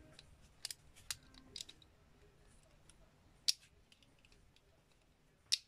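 Small plastic clicks of Vanish Fafnir Beyblade parts being handled and snapped together, a few separate clicks with the loudest about three and a half seconds in and another near the end.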